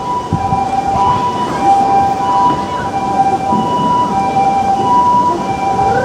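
Emergency vehicle's two-tone siren alternating steadily between a higher and a lower pitch, the hi-lo pattern used by Japanese ambulances.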